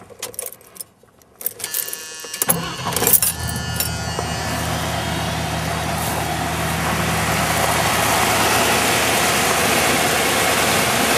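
Ignition key clicking and keys jangling, then the 1978 Mercury Grand Marquis V8 starts on a brief crank about two seconds in, with no choke, and settles into a steady, smooth idle that grows louder and fuller from the open engine bay. The quick start is the sign that a new distributor has cured its long-standing hard starting.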